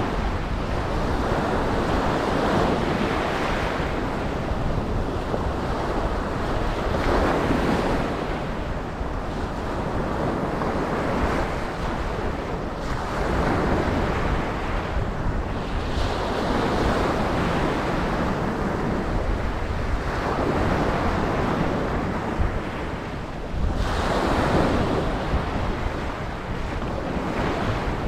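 Ocean waves breaking and washing on a beach, the surf swelling and falling every few seconds, one wave crashing in sharply near the end. Wind noise on the microphone rumbles underneath.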